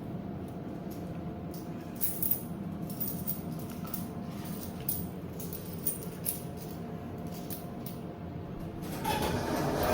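Schindler elevator car running between floors: a steady low hum with a faint steady whine and occasional light clicks. About nine seconds in, the whine stops and a louder, fuller sound starts.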